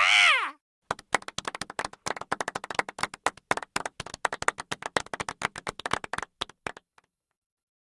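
A small group clapping: a fast, irregular patter of sharp claps that thins out and stops about seven seconds in. It begins on the end of a pitched animal call that rises and falls.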